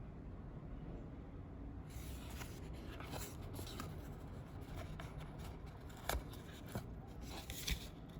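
Packaging being handled: rustling and scraping with many small clicks, starting about two seconds in, with a few sharper clicks near the end.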